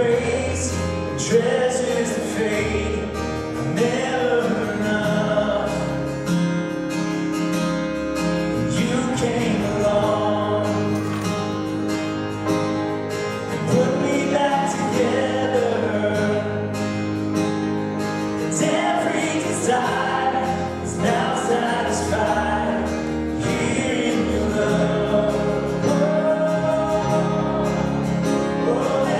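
A contemporary worship song performed live by a small band: a man singing with acoustic guitar, backed by electric guitar and keyboard.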